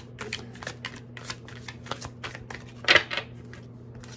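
Tarot cards being shuffled by hand: a quick run of crisp flicking clicks, with one louder snap about three seconds in.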